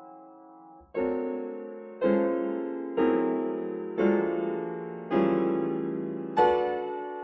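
Solo piano striking six loud, full chords about a second apart, each left to ring and die away before the next.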